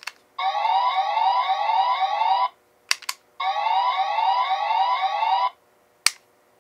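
SP License toy's electronic police siren: a click, then about two seconds of quickly repeating rising sweeps from its small speaker. This happens twice, and a third click comes near the end.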